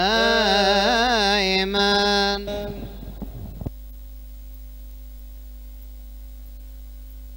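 A single voice chants a melismatic Coptic liturgical hymn line, with held notes and wavering ornaments, and stops about two and a half seconds in. A steady electrical hum from the sound system remains after it.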